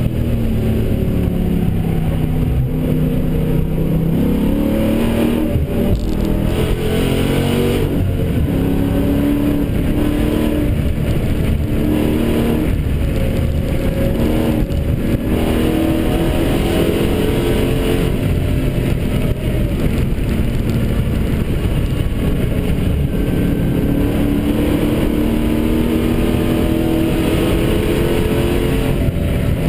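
Dodge Challenger SRT8's V8 engine under hard acceleration, heard from inside the cabin; the engine pitch climbs and drops again several times as it is driven through the gears, with steady road and wind noise underneath.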